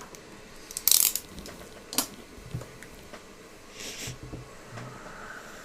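Small objects being handled on a workbench: a few sharp clicks, the loudest about a second in and another about two seconds in, then a short rustling scrape about four seconds in.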